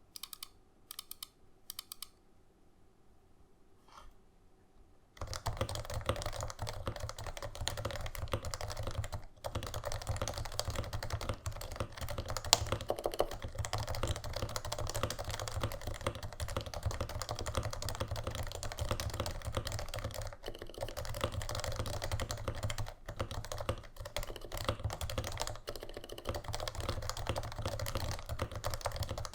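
Typing on a Norbauer Norbaforce Mk. III Topre keyboard with stock 45 g Topre domes and no silencing rings. A few separate keystrokes come first, then after a short pause fast continuous typing starts about five seconds in.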